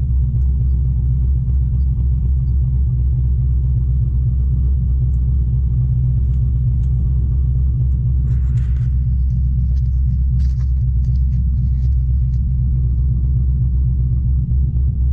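Corvette V8 idling steadily as it warms up just after a cold start.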